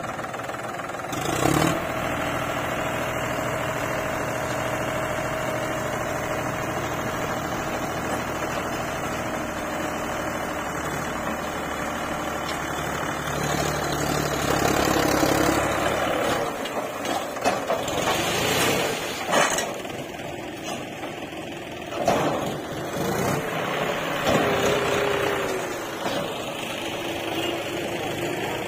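Farm tractor's diesel engine running steadily while its hydraulic tipping trolley lifts to dump a load of soil. The engine grows louder for a few seconds about halfway through, then irregular knocks and thuds follow.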